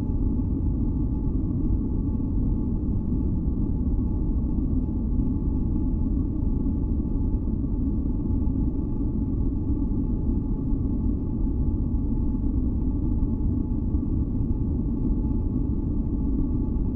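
Steady, deep synthesized noise, heaviest in the bass, with a few faint held tones above it.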